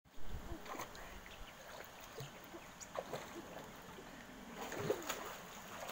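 Light splashing and lapping of pool water from a child's swimming strokes, with a few small sharp splashes.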